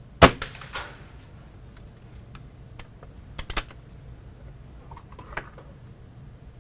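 Walther LGU spring-piston air rifle firing once: a sharp crack with a short ringing decay. Then a few sharp metal clicks as its underlever is swung down and back to cock it, with softer clicks near the end.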